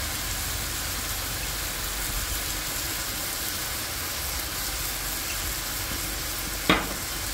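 Chopped duck and ginger sizzling in a large steel wok: a steady hiss. A single sharp knock near the end.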